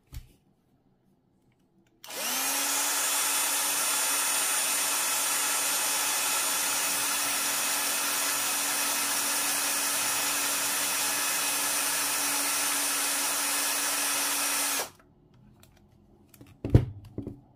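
Cordless drill running unloaded at a steady speed, its chuck turning about 3,000 rpm: it spins up quickly, holds a steady whine for about thirteen seconds and stops abruptly. A couple of sharp knocks follow near the end.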